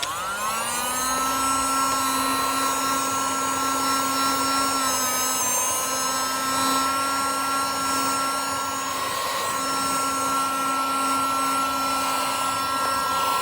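A small electric motor spinning up over the first second, then running at a steady, high-pitched whine.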